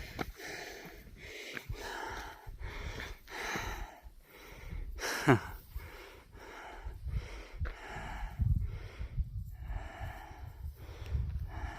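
A hiker breathing hard while climbing, rough in-and-out breaths about twice a second close to the microphone, over a low rumble. A sharp click about five seconds in.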